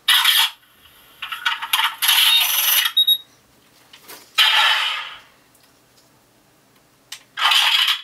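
Electronic sound effects from a homemade E-11 blaster prop's Arduino-driven speaker: the reload and firing effects as four separate loud bursts, the third fading away after about a second, with a short beep near the middle.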